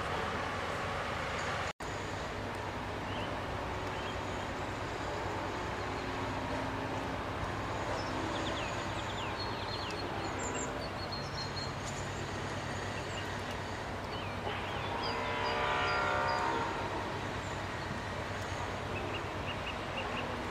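Steady outdoor rumble and hiss with a low machine hum, short high chirps here and there, and a pitched tone that swells and fades about fifteen seconds in. The sound cuts out for an instant about two seconds in.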